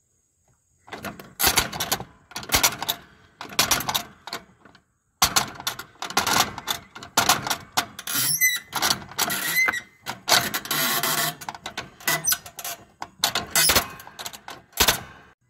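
Cub Cadet GTX1054 lawn tractor's steering pinion and sector gear clattering and clicking irregularly as the steering is turned back and forth, with a few short squeaks in the middle. The worn steering gear does not stay engaged, so the steering pops out of gear.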